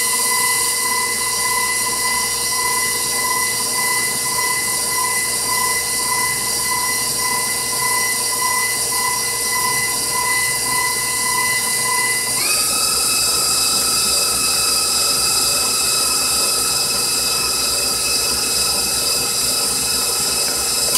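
Stand mixer motor running with a steady whine as its flat beater beats eggs into pound cake batter. About twelve seconds in, the pitch steps up as the mixer is switched to a higher speed.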